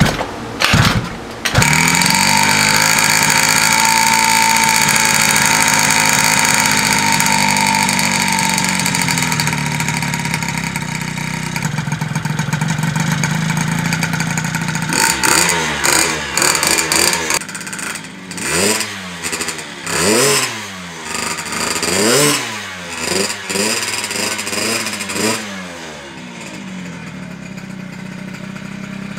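A 120cc two-stroke stroker Honda Elite scooter engine is kick-started and catches about a second in. It runs at a high, steady fast idle that settles lower after several seconds. From about halfway on it is revved in a series of quick throttle blips, each rising and falling.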